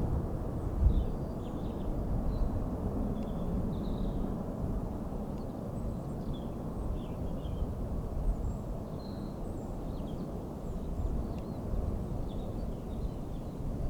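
Low, steady rumble of a distant Boeing 747-400 freighter's jet engines, with scattered faint chirps of small birds.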